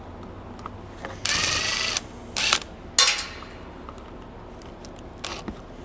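Parts of an air cart meter housing being handled: a scrape lasting under a second, then a short rattle, a sharp click and a few small knocks.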